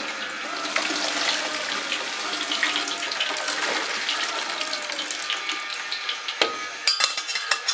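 Boiling pasta water poured from a stainless steel pot through a metal sieve into a stainless steel sink, gushing and splashing steadily. A few sharp knocks come near the end.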